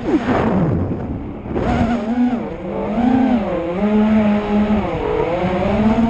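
Racing drone's electric motors whining. The pitch drops sharply as the throttle is cut at the start, then picks up again about two seconds in and rises and falls with the throttle. Wind rumbles on the microphone underneath.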